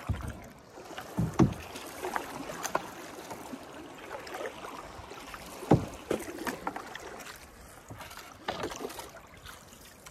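Canoe being paddled on calm water: wooden paddle strokes dipping and pulling through the water with splashes and dripping, irregularly spaced, with a couple of louder knocks about a second and a half in and near the middle.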